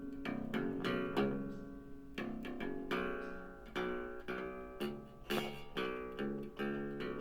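Homemade bass cigar box guitar with a piezo pickup, played through an amplifier: a run of picked notes, about two a second, each ringing briefly before the next.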